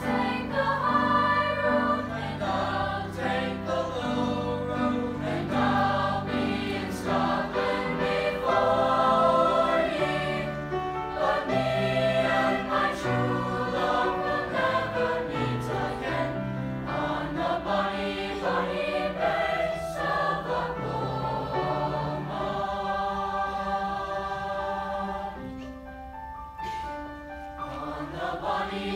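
Mixed high school chamber choir singing in four-part harmony, with piano accompaniment.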